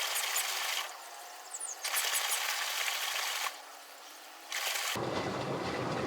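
Samsung front-load washing machine running with water in the drum: three bursts of splashing hiss, each a second or so long, with short quieter gaps between.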